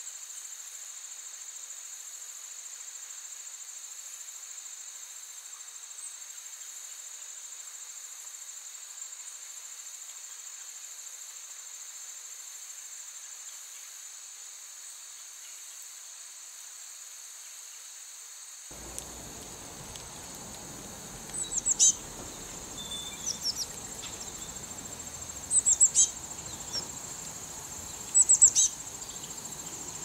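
A steady, high-pitched chorus of insects, with short, sharp bird chirps in four quick clusters in the second half. The chirps are the loudest sounds, and a low background hiss comes in about two-thirds of the way through.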